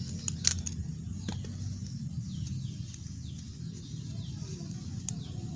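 A few sharp clicks and taps as a screwdriver and the small plastic and metal parts of a brush cutter's throttle lever assembly are handled, the loudest about half a second in. A steady low rumble runs underneath, with small birds chirping now and then.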